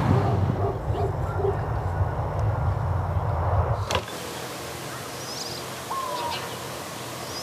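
Outdoor ambience with a low steady rumble that cuts off suddenly about four seconds in. It gives way to quieter countryside ambience with a few short bird chirps and a brief falling whistle.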